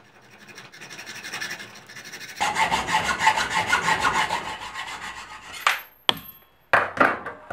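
Hacksaw cutting through a steel threaded pushrod held in a bench vise, shortening a universal motorcycle rear brake master cylinder's pushrod. The rapid back-and-forth rasping strokes start lightly and grow louder, then stop about five and a half seconds in. A few sharp clicks and a brief metallic ring follow.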